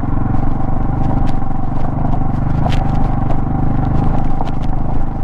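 Motorcycle engine running steadily at low speed, with scattered sharp knocks and clatter as the bike rides over a rough stone-laid track.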